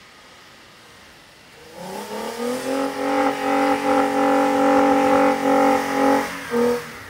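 Toyota Tacoma pickup's engine revving hard under load as the truck ploughs through deep snow. It climbs in pitch for about a second, holds high for about three seconds, drops off, then gives one short blip of throttle near the end.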